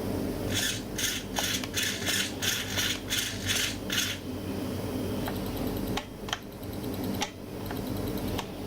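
Radio-controlled car with a brushless motor driven in short spurts: about eight rasping bursts in three and a half seconds, then a few single clicks over a steady low hum.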